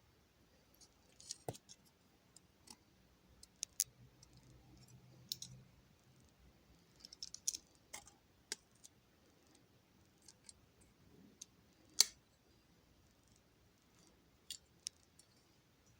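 Scattered light clicks and taps of small metal parts being handled, as a broken tab is lined up on a Jeep headlight retainer ring, with one sharper click about twelve seconds in.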